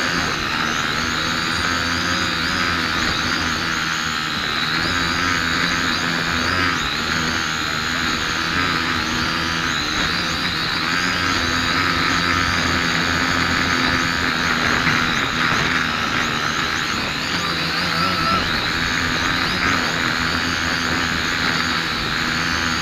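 A cheap quadcopter drone's motors and propellers whining steadily, the high pitch wavering slightly, over a lower steady hum.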